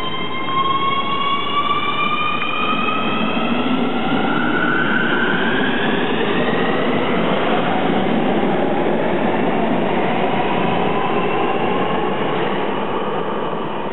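Nuremberg U-Bahn DT3 metro train accelerating out of an underground station: a rising electric whine of several pitches climbs over the rumble of wheels on rail, then fades near the end as the train draws away.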